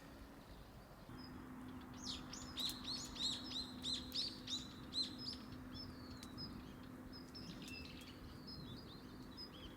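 A wild bird singing a quick series of high, repeated chirps, about three a second for some three seconds, followed by fainter scattered calls.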